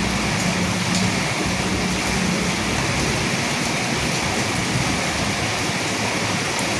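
Steady, even rain, with a low rumble underneath that fades out about two and a half seconds in.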